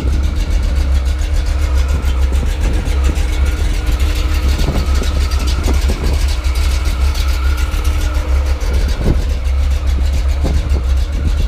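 1984 Chevrolet Silverado's 5.7L V8 idling steadily, with a deep, even rumble through its Hooker headers and Flowmaster-type exhaust.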